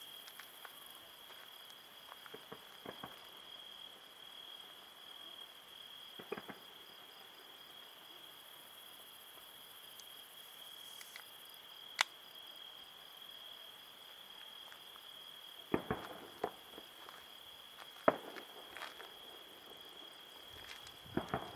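Distant fireworks going off as several separate sharp bangs and pops, most of them in the second half, over a steady high-pitched trill of crickets.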